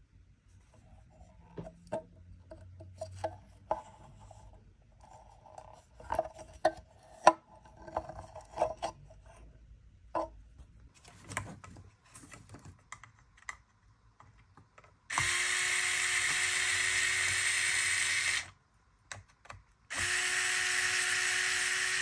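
A small electric power tool running in two steady spells of about three seconds each, its motor holding one pitch, after a stretch of light clicks and taps from handling parts and tools.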